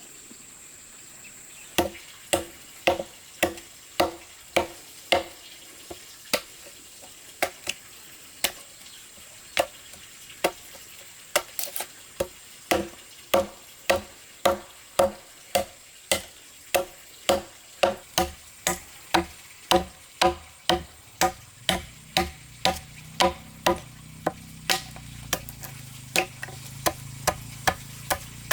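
Repeated hard blows of a hand tool striking wood, about two a second after a short pause at the start, each blow with a brief low ringing note.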